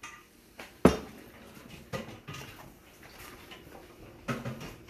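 A few light clicks and knocks of a hot sauce bottle and dishes on a kitchen counter as hot sauce is shaken over a bowl, with one sharp knock just under a second in.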